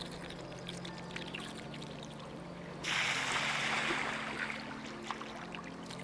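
Water trickling in a shallow channel. A louder rush of water noise starts abruptly about halfway through and fades over a second or so.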